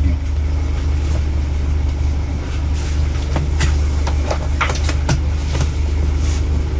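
Motorboat's inboard engine running steadily at low revs, a constant low hum. A run of short knocks and clicks comes from about two and a half to five and a half seconds in.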